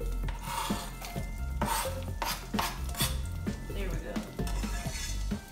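A knife scraping chopped onion off a plastic cutting board into a pan of hot oil, with the onion sizzling as it lands. A run of scrapes and taps of the knife against the pan and board follows as the onion is pushed around.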